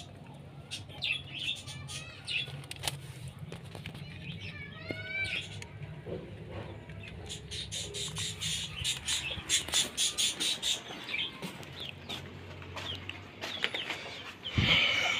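Coop birds chirping and clucking, with scattered clicks and knocks from close handling. A louder burst of noise comes near the end.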